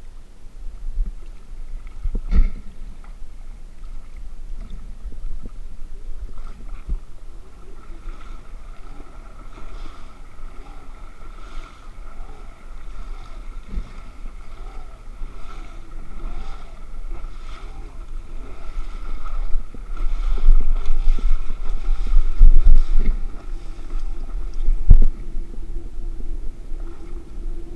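Electric efoil board's motor running with a steady whine, over low buffeting of wind and water against the microphone, with a few sharp knocks.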